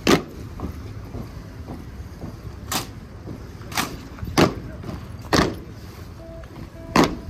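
A military silent drill team's sharp cracks in unison as boots stamp on stone paving and hands slap rifles: about six strong hits a second or so apart, with fainter ones between, over steady outdoor background noise.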